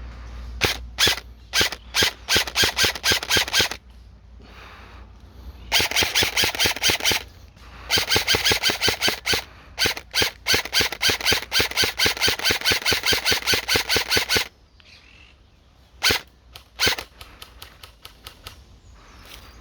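Airsoft gun firing rapid strings of shots, the longest lasting several seconds in the middle, with a few single shots around them and fainter shots near the end.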